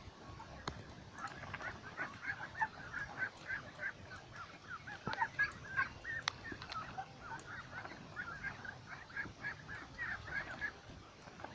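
A flock of white domestic ducks quacking, many short calls overlapping almost without pause after a brief lull at the start.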